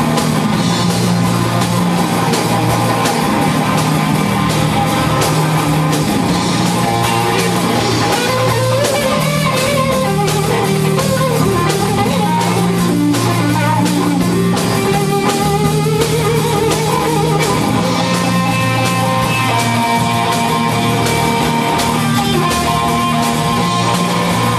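Electric guitar and drum kit playing a rock song live, loud and continuous.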